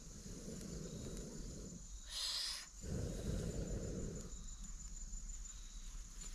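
Person blowing hard into a wood fire to fan the flames: two long puffs of breath, with a short sharp hiss about two seconds in between them.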